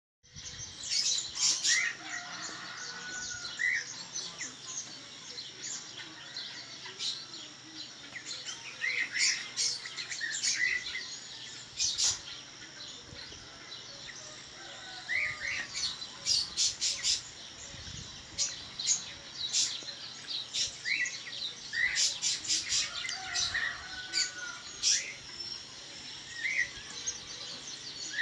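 Green-winged saltator (trinca-ferro) singing among other birds: short whistled notes and quick glides, mixed with sharp high chips, repeated throughout over a steady high background chorus.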